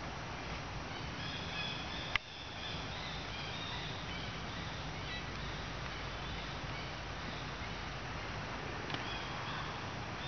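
Short high chirping animal calls, several in quick succession in the first half, over a steady outdoor hiss, with a sharp click about two seconds in.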